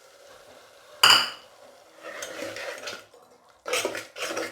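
Metal kitchen utensils knocking against a metal cooking pot: one sharp ringing clink about a second in, then scraping and a brief clatter near the end.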